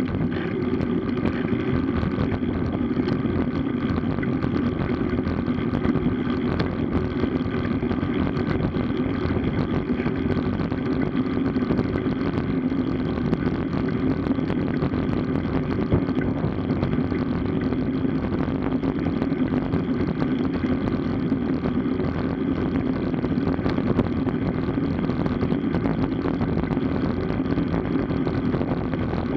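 Steady rushing wind and road noise of a road bicycle in motion, unbroken throughout.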